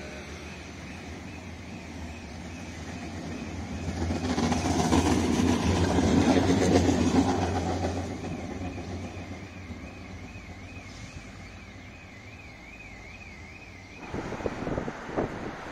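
A modern low-floor tram passing on grass-lined track, its running noise swelling to a peak about five to seven seconds in, then fading as it moves away. About two seconds before the end the sound switches abruptly to uneven wind noise on the microphone.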